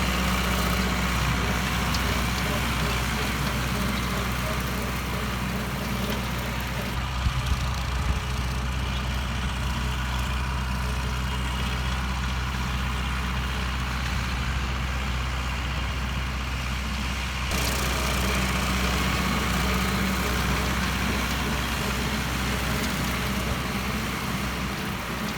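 Renault 751 4S tractor's diesel engine running steadily, driving a rear-mounted Fleming 5-foot PTO topper that is cutting reeds and long grass. The higher part of the sound drops back for about ten seconds in the middle, with a couple of brief knocks near the start of that stretch.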